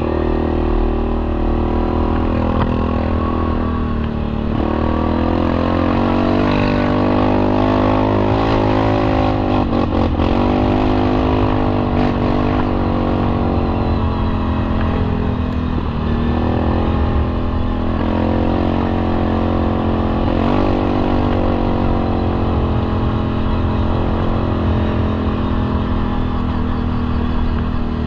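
Yamaha four-wheeler's engine running under way on a dirt trail. Its pitch drops and climbs back several times as the throttle eases off and opens again.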